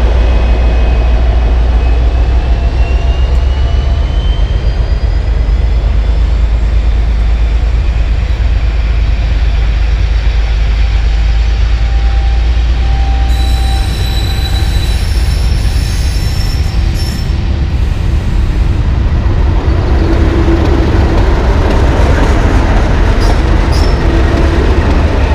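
Diesel-hauled passenger train passing close by: the deep drone of a Class 57 locomotive going past, then the coaches' wheels rolling by with some thin squealing, and in the last few seconds the engine hum of the Class 37 locomotive on the rear.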